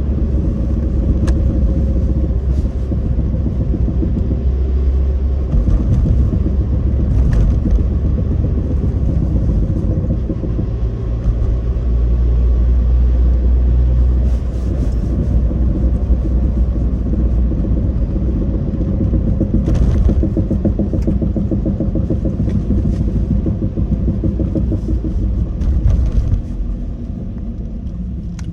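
Suzuki Swift Sport ZC31S on a test drive: steady engine and road rumble with a few scattered knocks, the front-end knocking later traced to a worn strut upper-mount bearing. The rumble eases a little near the end.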